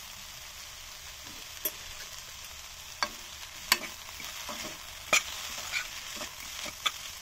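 Chopped mixed vegetables sizzling in a metal pan as they are stir-fried, with a steady hiss. The spatula knocks and scrapes against the pan about six times.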